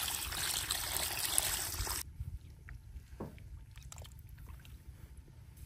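A stream of water pouring and splashing onto chunks of raw meat in a clay bowl, cutting off suddenly about two seconds in. After that it is much quieter, with a low rumble and a few faint clicks.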